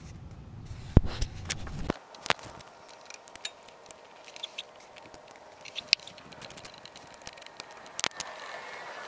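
Handling noise of hands working under a car: scattered clicks, taps and scrapes on metal and plastic, with a sharp knock about a second in over a brief low rumble, and another knock near the end as a hand brushes the camera.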